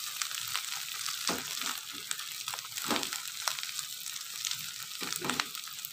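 Ground green chilli sambal sizzling gently in oil in a wok over low heat, with fine crackling throughout. A spatula scrapes through it a few times as it is stirred. The paste is nearly cooked.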